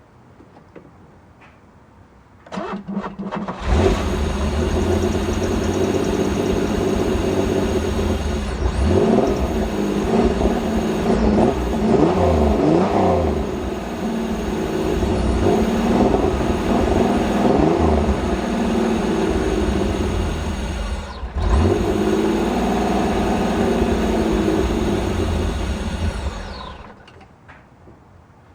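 Pontiac Fiero engine cranked by the starter about two and a half seconds in, catching and running with the revs rising and falling. It dips briefly once, then dies down near the end, on a car that has not been started in a while and is short of fuel.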